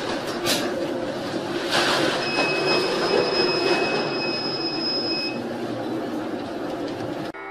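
Rushing storm noise of wind and sea aboard a ship taking heavy seas over the bow. Two sharp slaps of water hit in the first two seconds, and a steady high tone holds for about three seconds in the middle.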